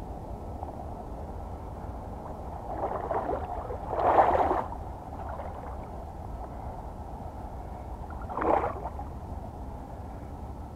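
Hooked California halibut thrashing at the water's surface: a splash building from about three seconds in and peaking near four and a half, then a shorter splash near the end, over a steady low wash of wind and water.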